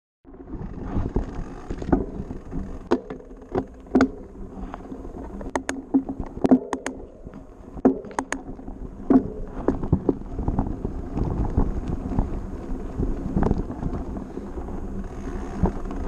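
Mountain bike with the camera mounted on it: sharp clicks and knocks from the bike and mount as it is set moving, then knobby tyres rolling over grass and gravel with a steady rush that grows in the second half.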